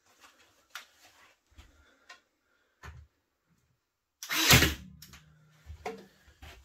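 Faint taps and knocks of wood being handled, then about four seconds in a loud sudden bang of a brad nailer firing into the pine jamb corner, followed by a brief steady hum and a second, smaller thump near the end.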